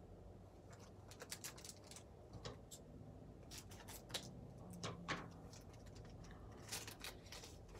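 Trading cards being handled and set down on a playmat, and a booster pack being cut open with scissors: a string of faint clicks, snips and wrapper crinkles, busiest a few seconds in.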